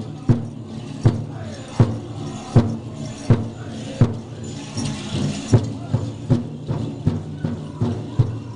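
Powwow drum beaten in a steady rhythm, a heavy beat about every three quarters of a second with lighter beats between, under a group of singers singing together in a hall.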